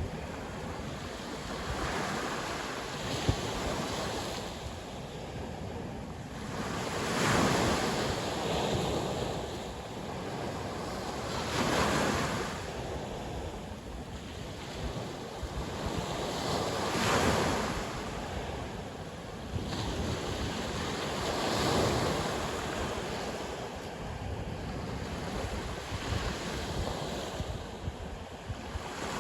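Sea waves breaking on the shore, one wash of surf swelling and falling back every four to five seconds, with wind blowing across the microphone.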